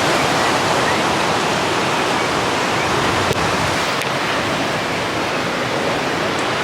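Steady rushing wind and road noise inside a moving car.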